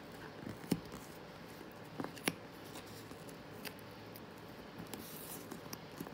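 X-Acto knife cutting and picking foam padding out of a door-pull hole in a molded ABS plastic door card: faint scraping with a few scattered sharp clicks of the blade.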